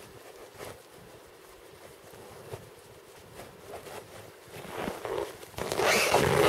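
Faint rustling of a cloth as hands are wiped, then, from about five seconds in, louder rustling of heavy winter clothing and crunching snow as a person shifts and rises from kneeling on snow.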